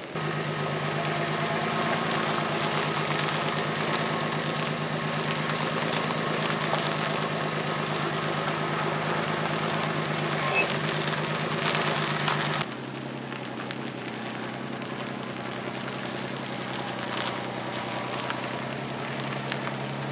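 Tow tug's engine running steadily as the vehicle moves over gravel. About two-thirds of the way through, the sound cuts abruptly to a quieter, slightly lower engine note.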